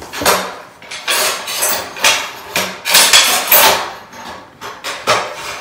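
Irregular knocks and scrapes of hand work on ceramic floor tiles as they are set, in a quick uneven series.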